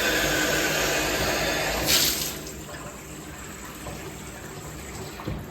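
Bathtub faucet running water into the tub, a loud gush that drops to a quieter flow about two seconds in.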